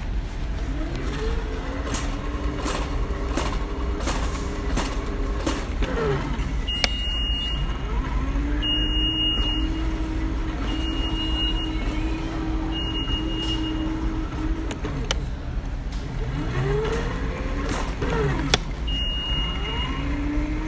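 Car engine and road noise running steadily, the engine pitch rising and falling a few times, with scattered sharp clicks.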